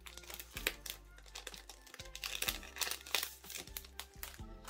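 Paper rustling and crinkling as a paper envelope is handled and opened, in many short rustles, over quiet background music.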